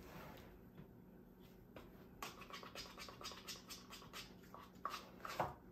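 Faint, irregular small clicks and scrapes, several a second, starting about two seconds in, with one louder knock just before the end.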